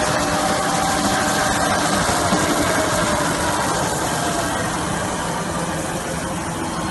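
DK 320 narrow-web slitter rewinder running at speed, a steady mechanical whir of motors and rollers as label web winds onto the cores, with faint whining tones that dip slightly in pitch.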